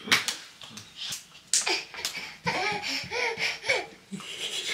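A toddler laughing and squealing without words, with a few claps of her small hands near the start.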